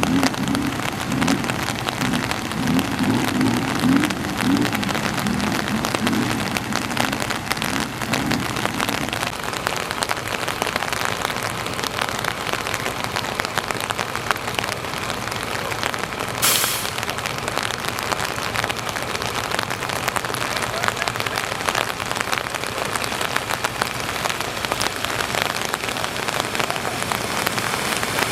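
Steady heavy rain falling, a dense patter of drops hitting surfaces, with a low pulsing hum underneath during the first third or so and a brief hiss about two-thirds of the way through.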